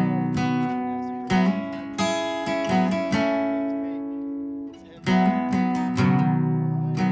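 Acoustic guitar music: chords strummed and left to ring out, with a brief gap about five seconds in before the next strum.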